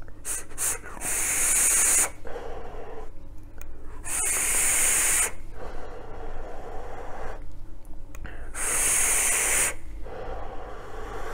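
Draws through a dripping atomizer on a vape mod: three airy hisses, each about a second long, as air is pulled through the coil and airflow holes, with softer breathy exhales of vapour between them.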